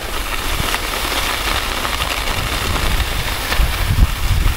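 Skis sliding over groomed snow, a steady hiss, with wind buffeting the microphone as a low rumble throughout.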